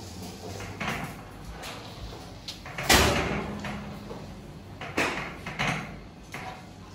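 A series of sharp knocks and bumps, the loudest about three seconds in, over a steady low hum.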